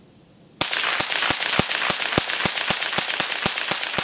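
Mossberg Blaze-47 semi-automatic .22 LR rifle fired in quick succession, about three to four shots a second, starting about half a second in.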